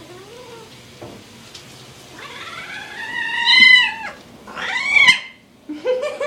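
Kitten meowing loudly in complaint: a soft short meow at the start, then one long drawn-out whiny meow about two seconds in, and a shorter one near five seconds.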